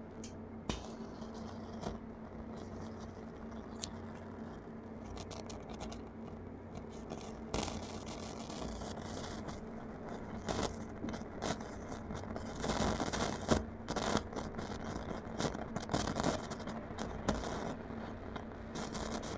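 Audiolab 8200A amplifier's faulty left channel putting out a scratchy crackle through its loudspeaker, with irregular pops over a steady low hum; the crackling grows busier in the second half.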